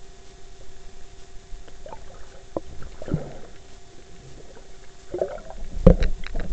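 Muffled knocks and sloshing of water against an underwater camera's waterproof housing, heard through the submerged camera's own microphone, over a faint steady hum. The knocks come a few times, and the loudest, sharpest one falls near the end.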